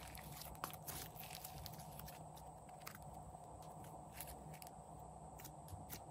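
Green slime being stretched, squeezed and pressed down by hand, giving faint sticky crackles and clicks, thick in the first second or so and then scattered.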